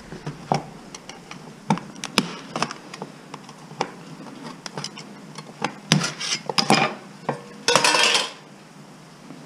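Small screwdriver working on a slim metal optical (DVD) drive during teardown: scattered light metal clicks and taps, with a denser half-second clatter near the end.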